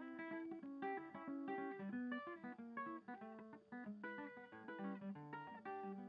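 Background music: acoustic guitar playing quick plucked notes.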